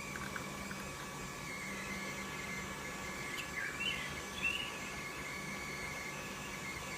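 Steady background hiss with a thin high whine, a few faint ticks near the start, and a short run of chirps about halfway through.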